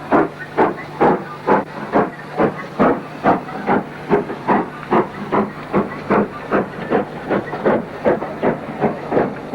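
Steam locomotive working steadily, with sharp, even exhaust beats at about two and a half a second and hiss between them.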